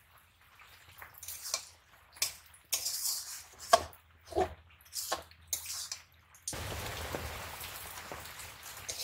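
Metal spatula stirring red spinach in a metal wok, in short scrapes and clicks. About six and a half seconds in, this gives way abruptly to a steady hiss.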